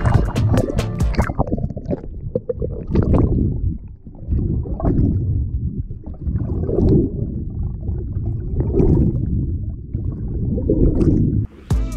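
Muffled gurgling of water heard with the camera underwater beside a canoe, swelling about every two seconds with the paddle strokes.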